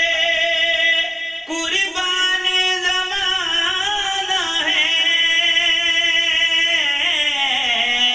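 A man singing a naat, drawing out a syllable in long, held notes with small ornamental wavers; a new, higher note comes in about a second and a half in and is held until it falls away in a descending run near the end.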